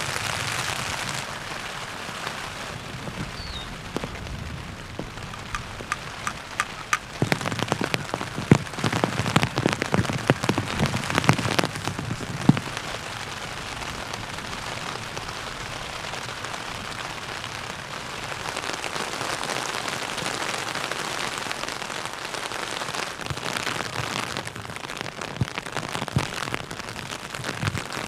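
Heavy rain falling on a tent's fabric, a steady hiss of drops. For a few seconds about a third of the way in it turns louder, with many sharp individual drop hits.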